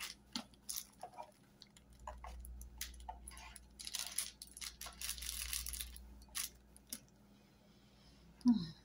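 Clear plastic wrapping crinkling and rustling as it is pulled off a clip-on lavalier microphone, with scattered small clicks from handling the mic and its cord.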